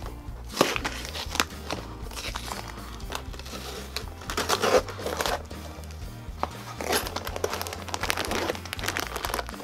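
Cardboard box and crinkly plastic wrapping being handled and opened, rustling and crackling in irregular stretches, over steady background music.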